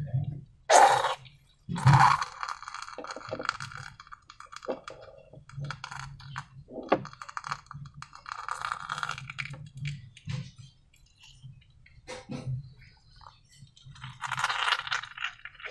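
Hands working with balloons and slime materials in a container: two loud, sharp crackling strikes about a second apart near the start, then scattered clicks, clinks and short rustling stretches.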